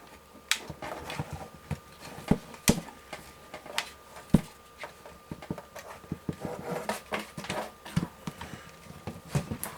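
Irregular clicks, taps and scrapes of a case fan's mounting screw being worked into the metal of a PC case, the screw reluctant to bite before it finally goes down.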